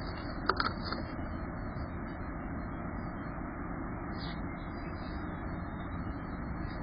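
A few sharp clicks about half a second in, the female oriole's beak tapping the glass feeder dish, over a steady background rumble and hiss.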